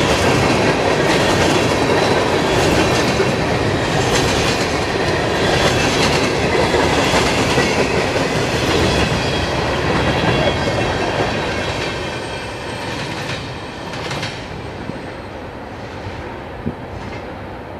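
Freight cars of a slow-moving train rolling past, steel wheels clicking over the rail joints. The sound fades over the last few seconds as the end of the train passes and draws away.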